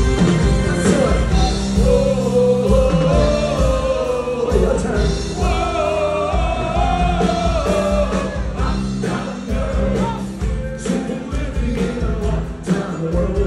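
Live rock band playing, with a singer holding long, wavering notes over a steady drum beat.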